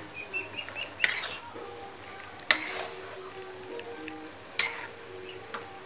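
A metal spoon stirring food in a metal wok, scraping and clinking against the pan, with three louder scrapes about a second, two and a half and four and a half seconds in.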